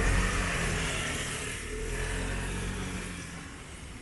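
A vehicle passing close by and moving off: a low engine hum with tyre hiss from the wet road, loudest at first and fading away.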